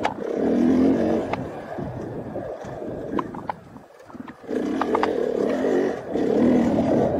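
2018 KTM 500 EXC's single-cylinder four-stroke engine pulling hard on a trail ride. The throttle eases off briefly about four seconds in, then the engine comes back on hard, with a few sharp ticks scattered through.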